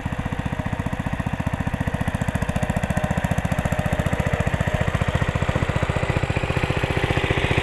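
The single-cylinder Briggs & Stratton Model 23 engine of a 1951 Power King garden tractor, running steadily with a rapid, even firing beat as the tractor drives along.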